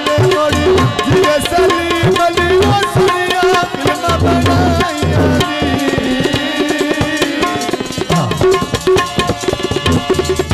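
Punjabi folk mahiye music: a fast hand-drum rhythm under a melodic line, with no words sung in this stretch.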